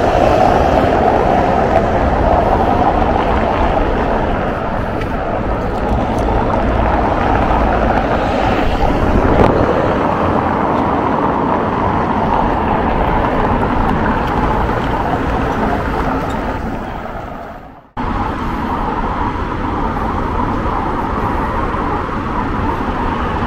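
Busy road traffic: a steady wash of car engines and tyre noise. About seventeen seconds in it fades down to almost nothing and cuts straight back to the same kind of traffic noise.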